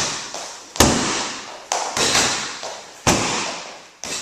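Kickboxing punches and kicks landing on a heavy bag: about five sharp thuds, each with a ringing room echo. The loudest is about a second in, and two follow quickly on each other near the middle.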